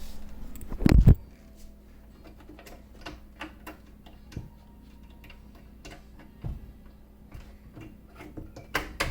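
The recording phone is set down with a thump about a second in, followed by scattered light clicks and taps of parts being handled, over a faint steady hum.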